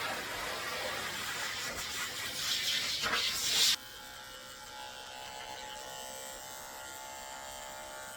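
Electric dog clippers with a #40 blade shaving the hair from a puppy's paw pads: a noisy buzz that swells and falls for the first few seconds, then a sudden drop about four seconds in to a quieter, steady motor hum.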